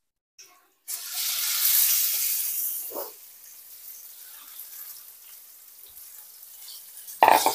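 Pieces of pork sizzling as they go into hot oil in a wok: a sudden loud sizzle about a second in that dies down to a softer steady sizzle, with a louder burst near the end.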